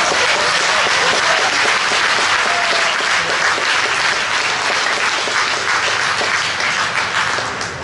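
Audience applauding and clapping, a dense steady patter that eases off slightly near the end.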